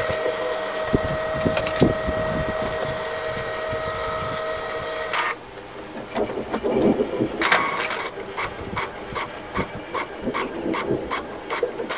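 Epson L3110 inkjet printer running a test print: a steady motor whine for about five seconds that stops abruptly, then irregular mechanical clicks and short whirs.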